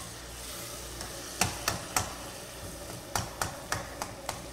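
A metal cooking utensil stirring food in a frying pan and knocking sharply against it: three knocks, then after a pause a quicker run of five, about three a second. A faint steady sizzle of frying runs underneath.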